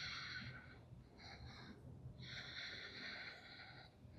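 Faint breathing through the nose, several separate breaths in and out, held steady in a breath-counted back-bending hold.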